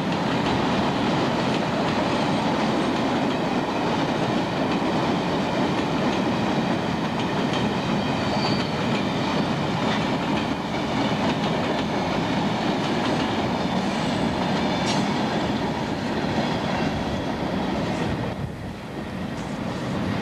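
Freight train of open-top hopper cars rolling past close by: a steady, loud noise of steel wheels on rail. The noise drops off about eighteen seconds in as the end of the train passes.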